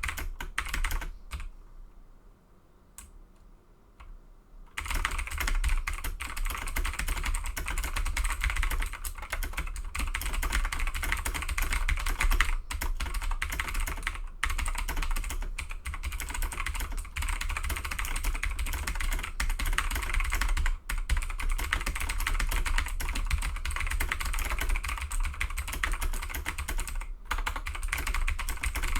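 Fast, continuous typing on a Razer BlackWidow Tournament Edition Chroma V2 mechanical keyboard with clicky Razer Green switches: a dense run of key clicks. The typing nearly stops about a second in and picks up again about five seconds in. A low rumble runs underneath while keys are being struck.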